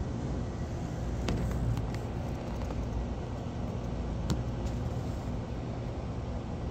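Steady low rumble and hum, with a few sharp clicks of a plastic water bottle being turned in the hand, about a second in and again near four seconds.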